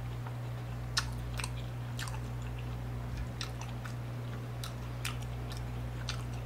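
Close-miked chewing of a mouthful of sushi: soft, wet mouth clicks and smacks at irregular moments over a steady low hum.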